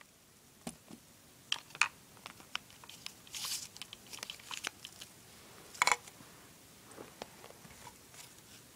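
Small paper slips crinkling and plastic toy pieces clicking as they are handled by hand: scattered light clicks and rustles, with a short crinkle about three and a half seconds in and a sharper cluster of clicks near six seconds.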